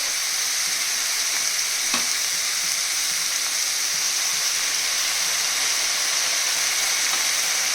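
Prawns, chicken, carrots and green beans sizzling steadily in hot oil in a wok as they are stir-fried, with a faint tick about two seconds in.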